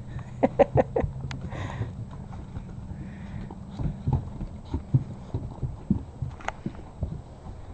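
Labrador puppies' paws and claws tapping and scuffing on wooden deck boards as they move about: an irregular scatter of light taps and knocks, busiest about half a second to a second in.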